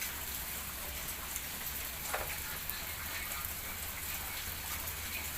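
Steady rain falling, an even hiss with a couple of brief louder drops.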